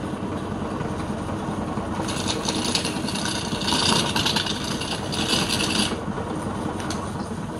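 Wood lathe spinning a large wooden disc blank while a hand-held steel turning tool cuts into it, the scraping cut coming in bursts over the lathe's steady running noise. The cutting is strongest from about two to six seconds in and eases off near the end.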